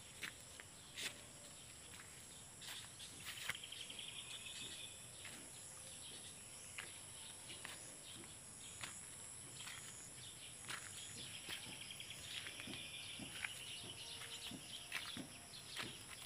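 Faint rural outdoor ambience: a steady high drone of insects with bird chirps, two longer trilling calls, and scattered footsteps on dirt as someone walks.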